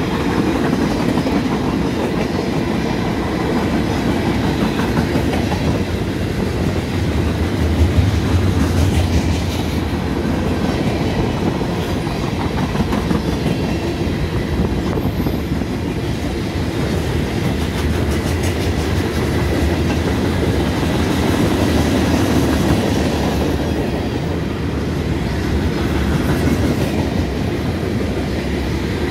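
Freight cars (centerbeam flatcars, boxcars and covered hoppers) rolling past, steel wheels clicking over the rail joints over a steady rumble.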